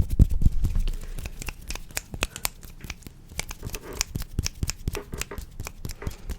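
Rapid, irregular tapping and scratching on an object as an ASMR trigger, many light clicks a second, with heavier low thuds in the first second.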